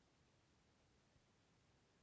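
Near silence: faint steady hiss, with no bird calls or pecking.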